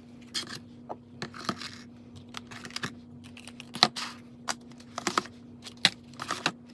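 Cosmetic products (a pump bottle, small cartons, a sachet and slim pencil and lipstick tubes) set down one by one into a cardboard box: irregular light clicks, taps and rustles.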